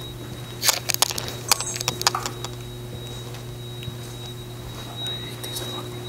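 A quick run of sharp clicks and clatters in the first half, over a steady low hum and a thin, steady high whine.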